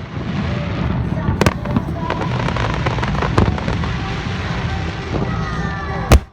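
Aerial fireworks display: dense continuous crackling, with sharp bangs about a second and a half in and again halfway through, and the loudest bang near the end.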